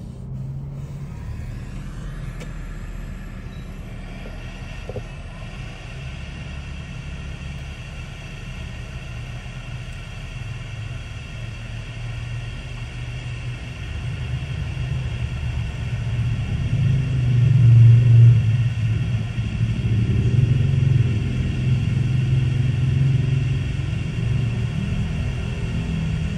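A steady machine hum with several high whining tones over a low rumble that grows louder partway through.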